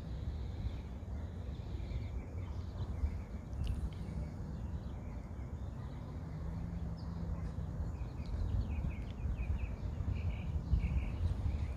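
Outdoor background: a steady low rumble with small birds chirping, the chirps coming more often in the last few seconds.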